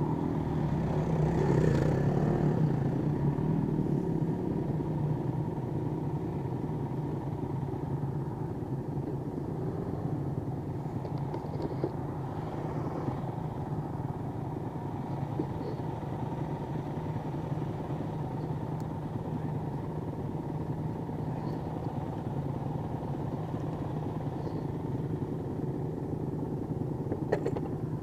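Single-cylinder four-stroke Honda CRF dirt bike engine running steadily at low revs, a little louder in the first few seconds.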